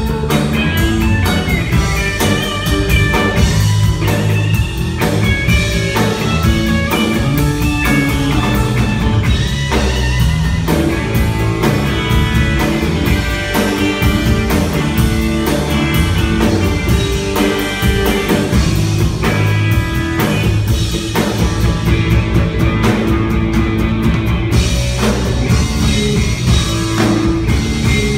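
Rock band playing live on electric guitars and a drum kit, a steady loud full-band passage.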